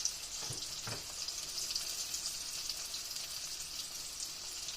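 Breaded green tomato slices frying in hot oil in a pan: a steady sizzle with fine crackling.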